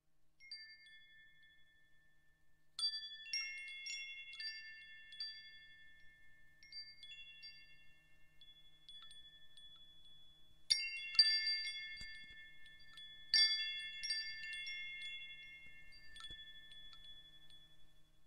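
Wind chimes ringing, a few tones at a time and left to ring out, with louder clusters of several chimes struck together about three seconds in, a little past halfway and again about three seconds after that.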